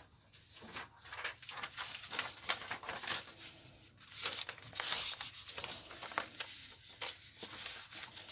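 A sheet of scrap paper being pulled out and handled, rustling and crinkling with a quick run of short crackles.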